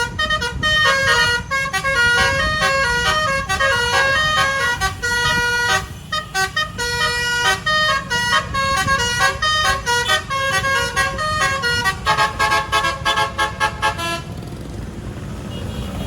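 Bus "telolet" Basuri musical horn playing a quick, stepping melody over the bus's low engine rumble. Near the end it switches to a fast repeated figure and then stops, leaving only engine and road noise.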